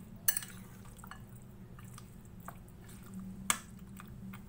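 Raw chicken pieces being mixed into a yogurt and spice marinade: soft wet squishing with scattered small clicks, two sharper ones just after the start and about three and a half seconds in, over a steady low hum.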